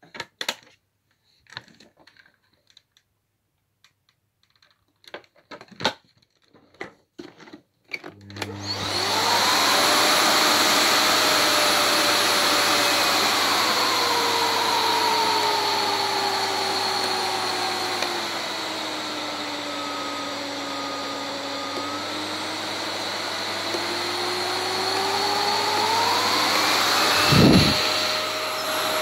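Clicks and knocks as the lid of a Miele Complete C2 Cat & Dog canister vacuum is shut and handled, then about eight seconds in its motor starts and runs up to a loud, steady whine. The whine's pitch falls and then rises again as the rotary suction dial is turned down and back up, with a thump near the end.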